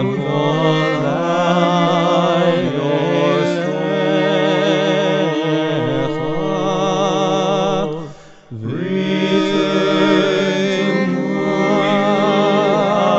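A cantor singing a long, melismatic Jewish liturgical chant with wide vibrato over held low accompanying notes, with a brief break for breath about eight seconds in.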